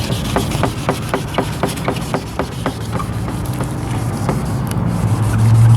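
Sandpaper rubbed by hand over a plastic headlight lens in quick back-and-forth strokes, about four a second, to cut away the yellowed surface. A steady low hum runs underneath and grows louder near the end.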